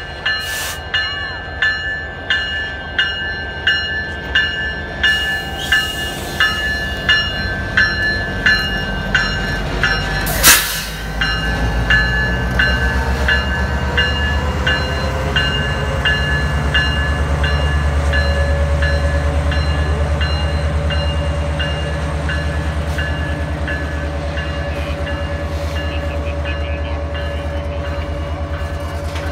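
Canadian Pacific diesel locomotive passing slowly, its bell ringing about twice a second. About ten seconds in comes a single sharp bang, and then the locomotive's engine rumble and the steady rolling clatter of boxcars take over while the bell fades.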